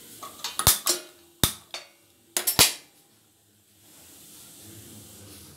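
A stainless steel pan clanks on a gas stove's metal grate: a handful of sharp metallic knocks and clicks with a short ring, the three loudest spread over about two seconds. A faint steady rush follows near the end.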